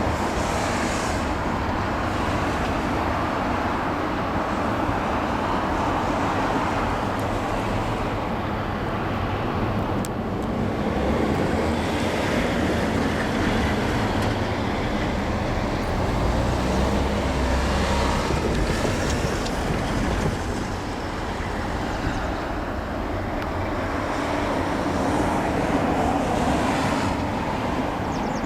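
Steady rumble of passing road traffic, tyres and engines, swelling and easing a little.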